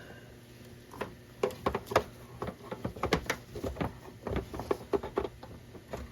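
A run of irregular clicks and knocks as the UPS's power cord and plug are handled and pushed into a wall outlet.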